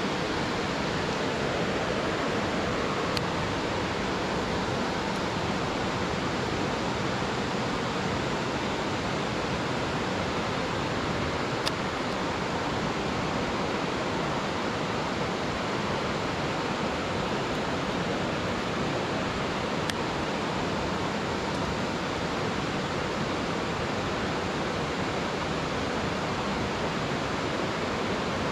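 Steady rushing of water spilling over a small river dam, unchanging throughout, with a few faint clicks.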